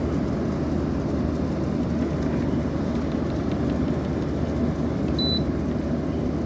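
Air conditioner running with a steady low hum. A short high beep sounds about five seconds in.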